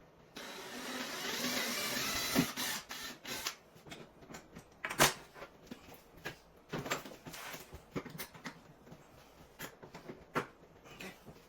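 Workshop handling noise. A steady hiss for about two seconds, then a run of irregular sharp clicks and knocks, as of tools and wood pieces being picked up and set down.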